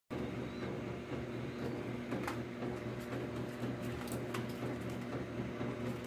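Steady low mechanical hum, with a few faint taps or clicks about two and four seconds in.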